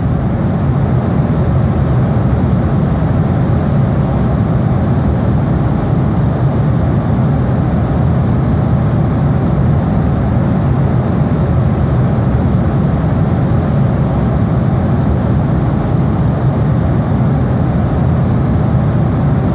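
Jet aircraft sound: a loud, steady low noise of engines with no breaks or changes.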